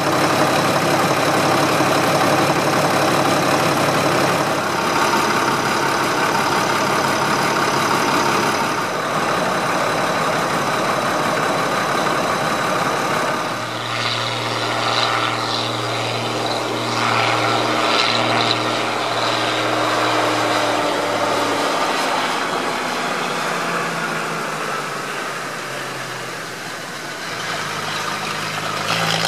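Ford 8210 tractor's six-cylinder diesel engine running close up. About halfway through it changes to the tractor pulling a trailer along a road, a steady droning engine note that grows louder and shifts in pitch near the end as it approaches.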